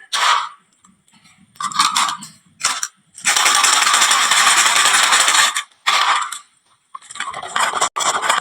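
Marbles rolling and clattering down a wooden marble-run slope: short rattling runs, one long steady roll lasting a couple of seconds in the middle, and a sharp click near the end.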